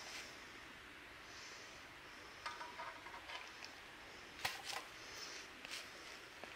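A little water poured into a cup of instant mashed potatoes, then a spoon stirring and clinking against the cup.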